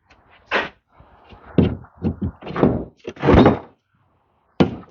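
A series of about six dull thunks and knocks a second or so apart, from work on the Ford 7610 tractor's metal around its control levers while packed cow manure and corn silage is being dug out.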